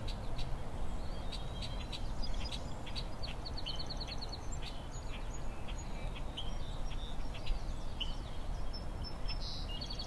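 Red-winged blackbirds calling over and over: short, sharp, high calls scattered throughout, with a quick rattling series about four seconds in, over a steady low background hum. The calls are part of a parabolic alarm, the birds scolding a raccoon moving through the cattails.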